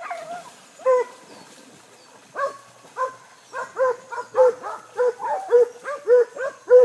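Hog-hunting dog barking at a bay, holding a wild hog. Short, sharp barks, a few spaced out at first, then coming quickly, about two or three a second, from about halfway through.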